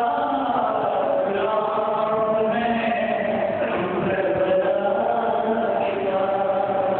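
A man chanting a melodic mourning recitation, a noha-style lament, into a microphone, holding long notes that glide slowly up and down.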